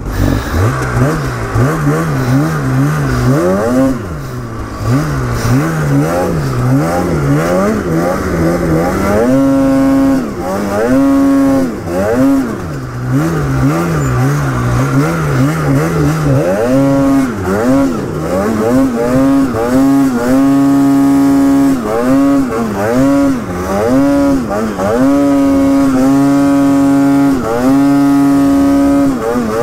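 Polaris RMK snowmobile's two-stroke engine revving up and down again and again as the throttle is worked to climb through deep snow. About nine seconds in, the revs rise, and from there they are held high in short stretches with quick drops between.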